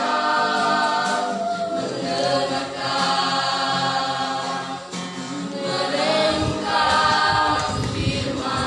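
A choir of voices singing a cappella in held, sustained chords, with deeper sound filling in underneath from about six seconds in.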